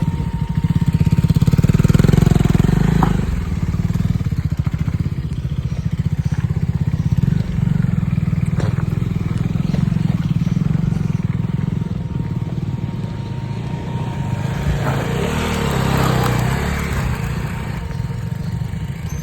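Motorcycle engine running steadily while riding, a continuous low rumble that swells a little now and then.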